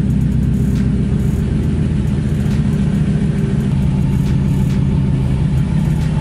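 Toyota Tundra pickup's engine idling steadily through a Black Widow aftermarket exhaust, heard at the tailpipe: an even, low growl.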